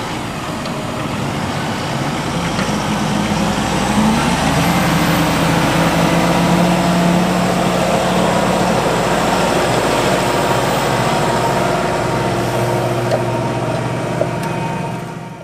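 Fendt 724 tractor's diesel engine running steadily under ploughing load, growing louder and rising slightly in pitch about four seconds in, then holding steady and fading away at the very end.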